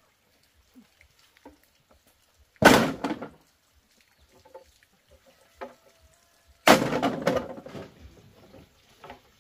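Hollow bamboo tubes clattering against bamboo as they are dropped and stacked, one clatter about a third of the way in and a longer one after the middle, with a few light knocks between.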